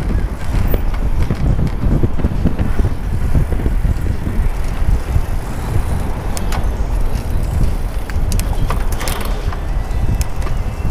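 Wind buffeting the action camera's microphone on a moving bicycle, a steady low rumble, with a few sharp clicks or rattles in the second half.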